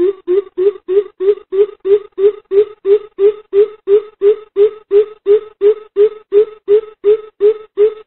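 Greater coucal giving a long series of low hoots, about three a second, evenly spaced and steady in pitch: the flock-calling call that is played as a lure to draw coucals in.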